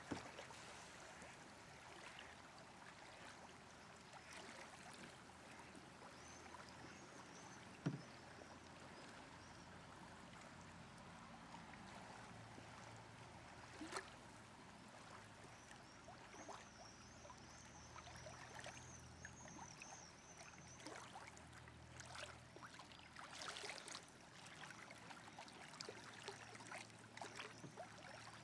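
Faint water sounds of a canoe on a river: a low swishing and lapping of water, with a few sharp knocks against the boat, the loudest about eight seconds in. A thin high warble comes and goes around the middle.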